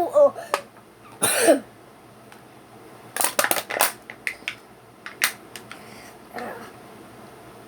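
A voiced engine imitation ends with a falling pitch at the very start, followed by a short breathy vocal sound. Then comes a rapid cluster of clicks and crinkles from handling the metal can about three seconds in, with scattered clicks after.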